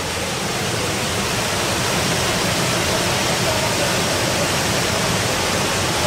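Small waterfall pouring over rock into its plunge pool: a steady rush of falling water, swelling a little over the first two seconds and then holding even.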